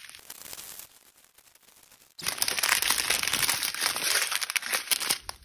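Plastic wrap and small plastic bags of diamond-painting drills crinkling as they are handled. There is a short burst of crinkling, then a quieter second or so, then about three seconds of louder, busy crinkling that stops near the end.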